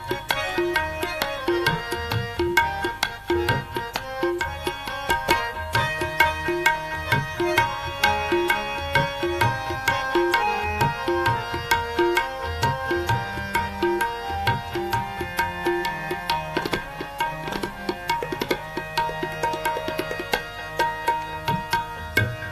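Instrumental interlude in Sikh shabad kirtan: tabla drumming a steady rhythm under sustained melodic instrument notes, between sung verses.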